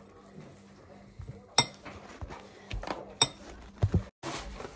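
Metal fork clinking and scraping against a ceramic bowl while twirling spaghetti, with two sharp clinks about a second and a half apart and a few softer knocks.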